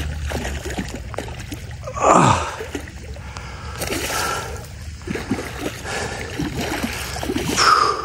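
A large hooked trout thrashing and splashing at the water's surface during the fight. Two loud short vocal exclamations from the angler stand out, one about two seconds in and one near the end.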